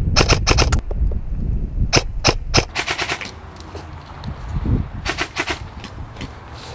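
Airsoft guns firing: a quick string of shots at the start, a few single shots and another short string around two to three seconds in, and a further short burst near five seconds.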